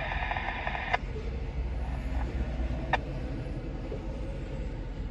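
A scanner radio's static hiss ends with a click about a second in. Then comes the low rumble of loaded coal hopper cars rolling slowly past, with another sharp click near the three-second mark.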